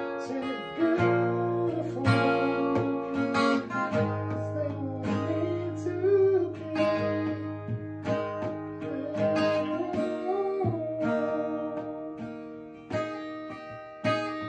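Ibanez black cutaway acoustic guitar, capoed, strumming chords about once a second, each chord ringing on between strokes.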